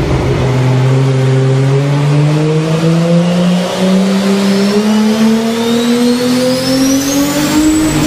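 Car engine revving, its pitch climbing steadily higher over about eight seconds and then falling away at the very end.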